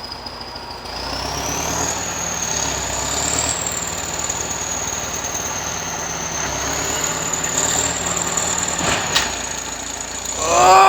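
A vehicle engine running, getting louder about a second in, with a high steady whine above it. A loud squeal rises and falls near the end.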